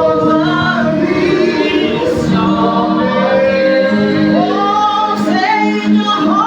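A praise team singing a gospel worship song together, several voices over a steady instrumental backing.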